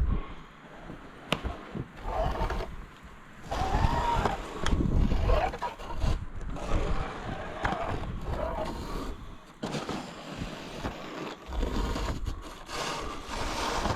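Snow shovel scraping and pushing snow in a run of uneven strokes, each lasting a second or two, with some short squeaks among them.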